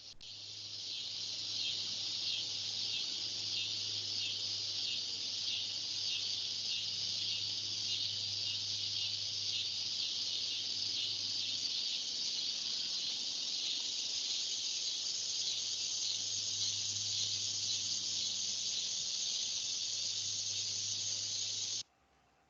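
An insect's continuous call, a dense high-pitched buzzing trill made by a body part rubbing or vibrating rather than by vocal cords. It swells in over the first couple of seconds, holds steady and cuts off suddenly near the end.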